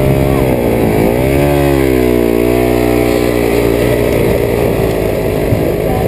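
Dirt bike engine revving hard under load on a steep climb, its pitch swinging up and down over the first couple of seconds and then holding steadier, while the rear wheel spins in loose dirt.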